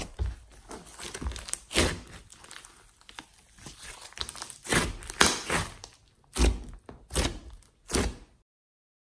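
Hands squeezing and poking a thick green glossy slime mixed with clay and small foam beads: a string of separate squelches and pops, some sharper than others, cutting off abruptly about eight seconds in.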